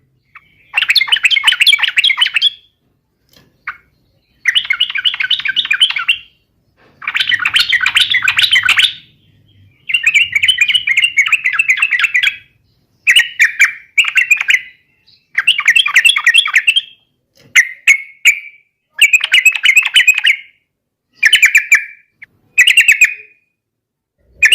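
Yellow-vented bulbul (trucukan) singing loud, bubbly chattering phrases, each one to two seconds long, repeated about a dozen times with brief pauses between them.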